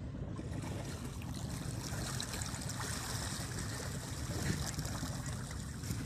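Sea water splashing and rushing against a boat's hull, steady over a low rumble.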